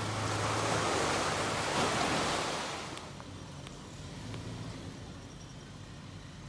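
Pickup truck churning out of a mud hole: muddy water splashing and sloshing around the tyres with the engine running. The splashing is loud for about three seconds, then drops away to a quieter low engine hum.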